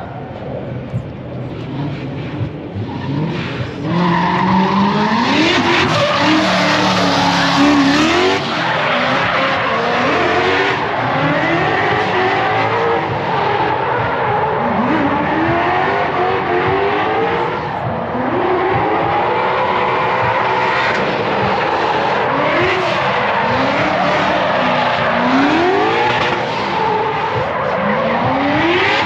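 Motor-vehicle engines revving hard, their pitch climbing again and again every few seconds over a loud, steady rush of noise. It grows louder about four seconds in.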